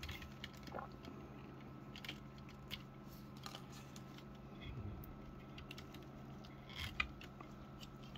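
Faint clicks and light rubbing of small plastic parts as an action figure's hands are fitted onto a toy motorcycle's handlebars, with a sharper click near the end, over a low steady hum.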